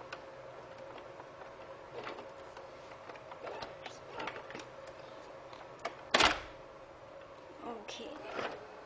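Plastic clicks and knocks as the dustbin is taken out of a robot vacuum cleaner, with one loud snap about six seconds in.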